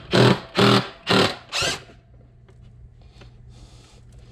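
Pneumatic impact wrench hammering in four short bursts about half a second apart, loosening a fastener on a removed motorcycle front fork tube during disassembly. After the bursts it stops, leaving a faint low hum and a few small clicks.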